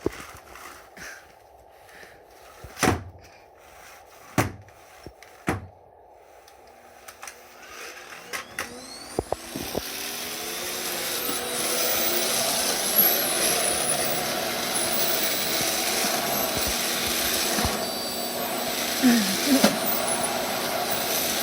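A few sharp knocks, then about nine seconds in a vacuum cleaner switches on, its motor spinning up over a few seconds and running steadily.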